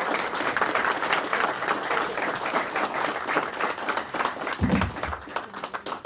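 Audience applauding: many hands clapping densely, thinning out near the end. A single low thump lands about four and a half seconds in.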